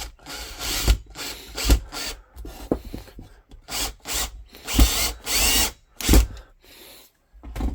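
Power drill running in a series of short bursts, driving screws into the wood frame, with knocks in between.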